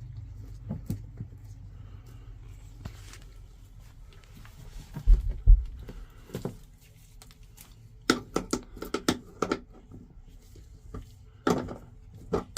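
Metal hand tool working a dash bracket bolt, with runs of quick, sharp clicks from about eight seconds in and again near the end. Two heavy low thumps about five seconds in.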